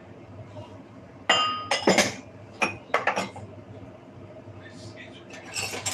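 Glass dishes clinking as they are handled and set down: a string of sharp clinks, the first and loudest about a second in, ringing briefly.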